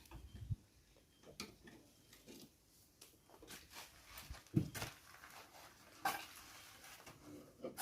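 Scattered light clicks and taps of small hard objects being handled, a few sharper knocks among them.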